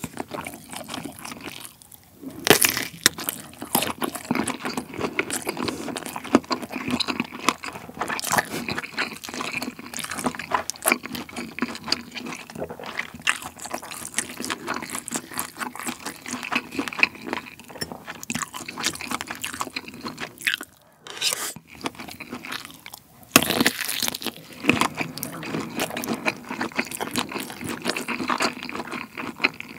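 Close-miked chewing of kielbasa sausage and fried rice: a steady run of wet mouth sounds and small clicks. There is a sharper bite about two seconds in, and another about three-quarters of the way through.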